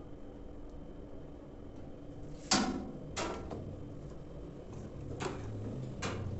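Four short clicks and knocks, the first the loudest, from parts being handled on the underside of a washing machine during reassembly.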